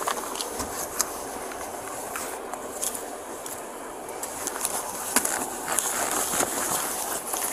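Clothes rustling and brushing close to the microphone, with scattered light clicks and knocks, as an officer pats down a man standing against a police car.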